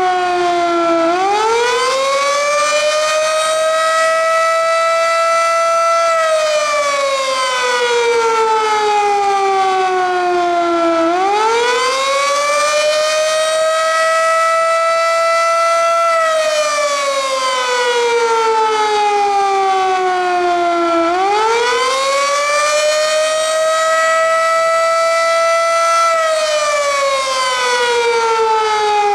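Darley 3V8 outdoor warning siren sounding the Attack signal: a loud wail whose pitch climbs quickly, holds for a few seconds, then slides slowly down. The cycle repeats about every ten seconds, three times over.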